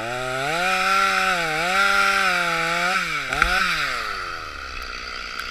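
Two-stroke chainsaw throttled up and cutting into a tree, its engine pitch dipping twice as the cut loads it. A sharp crack comes about three and a half seconds in, then the revs drop back.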